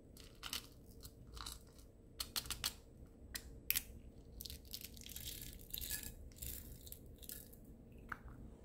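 Small plastic pot with a snap-on lid being handled: sharp plastic clicks of the lid opening and closing, and tiny plastic beads rattling and spilling, with crackly bursts of rattling in the second half.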